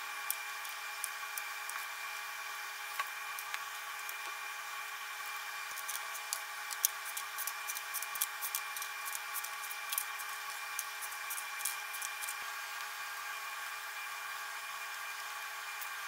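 Steady hum of kitchen machinery, with a run of small light clicks from about six to twelve seconds in as macaron shells are set down on a metal baking tray.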